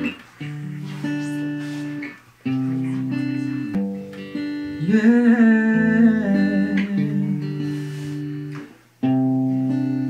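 Slow song intro on acoustic guitar and keyboard, held chords changing every couple of seconds with brief gaps between them. From about five to seven seconds in, a louder wavering wordless vocal line rises over the chords.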